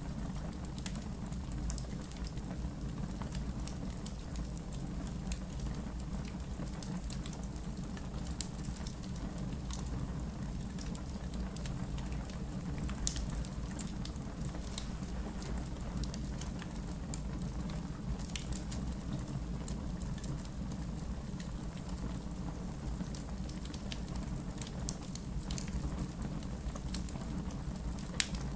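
Wood fire burning in a fireplace: a steady low rumble with scattered sharp crackles and pops, a few louder pops standing out.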